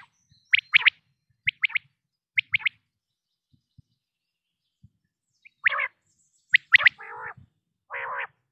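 Common quail calling: quick, sharp whistled notes in groups of two or three, the 'whit-whit-whit' song. A pause of about three seconds follows, then more sharp notes mixed with lower, harsher calls near the end.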